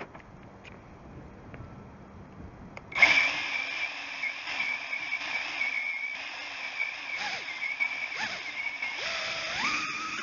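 Small FPV quadcopter's brushless motors, heard through its onboard camera, start spinning about three seconds in with a steady high whine, then rise in pitch near the end as the throttle comes up.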